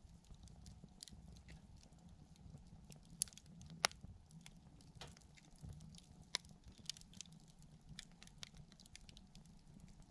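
Wood campfire crackling: irregular sharp pops and snaps, a couple louder ones about three and four seconds in, over a low steady rumble of the flames.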